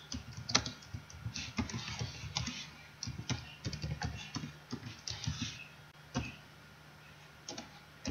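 Typing on a computer keyboard: rapid runs of keystrokes for about six seconds, a short pause, then a few more keys near the end, over a faint steady hum.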